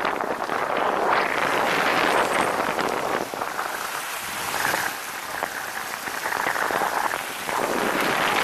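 Tyres hissing on a wet, slushy road with wind rushing over a camera microphone held outside a moving car. The hiss eases a little in the middle and grows again near the end.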